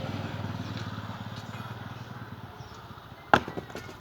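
An engine running with a fast, even pulse, fading away. About three seconds in comes one sharp knock, then a few lighter knocks.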